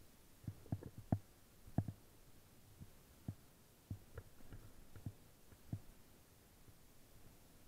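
A fat bike jolting over a bumpy snow trail: irregular low knocks and thumps from the bike and its frame-mounted gear, about a dozen, the loudest in the first two seconds, dying away after about six seconds.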